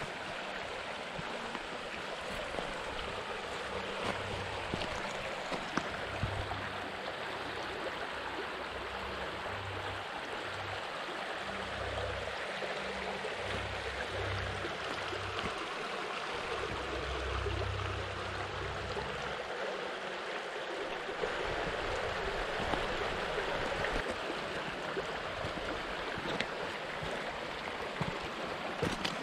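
Shallow freestone river running steadily over rocks and cobbles, a continuous rushing of water. Low rumbles come and go through the first two-thirds.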